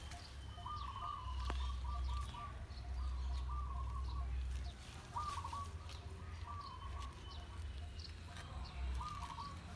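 A bird calling about five times, each call a short phrase of quick repeated notes at a middling pitch, a couple of seconds apart.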